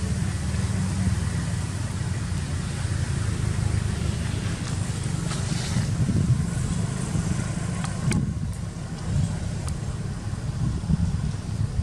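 Steady low rumble of wind buffeting the microphone, with one faint sharp click about eight seconds in.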